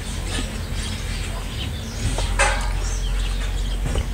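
Eating by hand: chewing and fingers working rice and buffalo curry in a metal bowl, with one sharp click a little past halfway. Birds chirp in the background over a steady low rumble.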